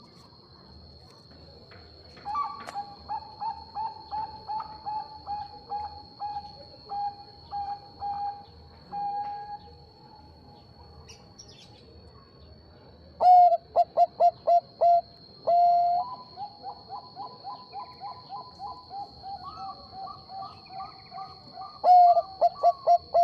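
Bangkok-line zebra dove (perkutut) cooing: phrases of rapid, evenly repeated notes. A softer bout comes first, then a louder bout about halfway through that includes a long held note and a run of quicker notes, with loud notes returning near the end. A faint steady high-pitched whine runs underneath.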